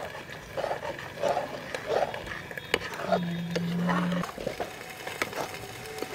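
A steel ladle stirs and scrapes thick masala gravy frying in a steel kadhai (bhunao, with the oil starting to separate), and clinks sharply against the pan now and then. About three seconds in, a low, steady animal call lasts about a second.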